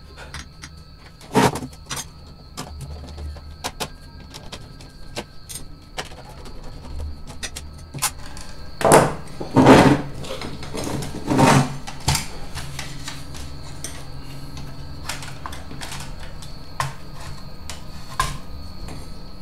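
Small plastic and metal parts of a DVD player's disc tray mechanism being handled and fitted: scattered light clicks and taps, with a few louder knocks in the middle.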